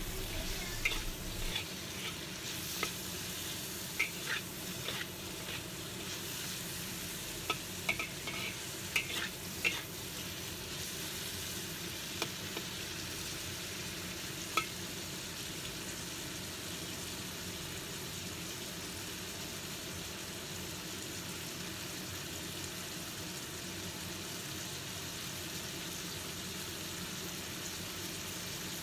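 Siomay, shrimp and squid sizzling in a hot wok while a spatula stir-fries them, with sharp clicks and scrapes of the spatula on the wok over the first ten seconds and once more a few seconds later. After that only a steady sizzle as the food fries untouched.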